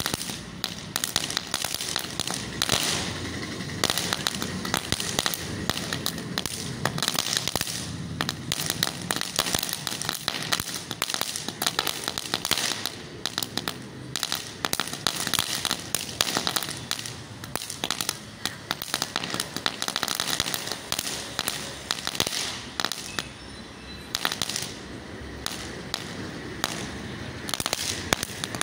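Ground firework burning on concrete, crackling continuously with a dense, irregular run of small sharp pops and fizzing sparks.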